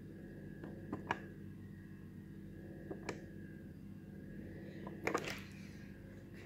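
Short sharp clicks about two seconds apart, the last a quick cluster, from the speed-change controls of a Studer A807 reel-to-reel tape recorder as its tape speed is switched with the Shift button held, over a steady low hum.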